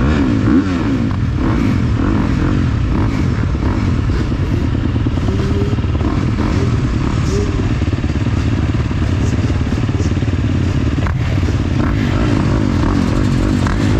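Motocross bike engine heard close up from on board while being ridden, its pitch rising and falling again and again as the throttle is worked, with a sharp knock about eleven seconds in.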